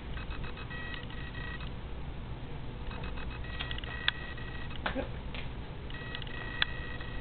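An electronic beeping tone sounding in three bursts about a second long, roughly every two and a half seconds, with a few sharp clicks in between.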